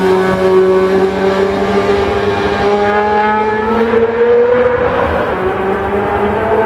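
Racing motorcycle engine held at high revs. Its pitch stays fairly steady, climbs a little about four seconds in, then eases back.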